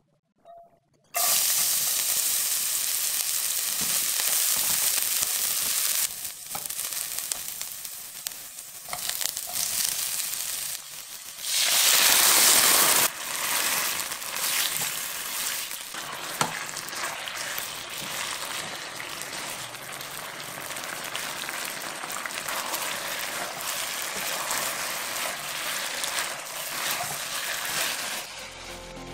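Food frying and sizzling in hot oil in a nonstick pan, with a silicone spatula stirring and scraping, small clicks and pops through the sizzle. About a second in the sizzling starts abruptly, it surges loudest for about a second around twelve seconds in, then settles to a steadier sizzle as the eggplant cooks in its sauce.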